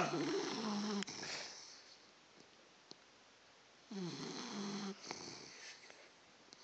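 A sleeper snoring like a rhino: one long snore at the start that fades out, then a second snore about four seconds in, followed at once by a weaker one.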